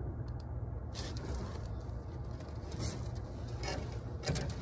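Handling noises while a large fish is lifted and held: a few brief rustling, scuffing bursts and a heavier thump near the end, over a steady low rumble.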